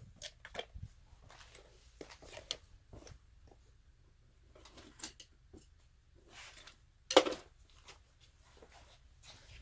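Scattered small clicks and scrapes of hand tools and wire being worked inside a metal electrical disconnect box, as a wire is fastened down under a terminal screw, with one louder short clatter about seven seconds in.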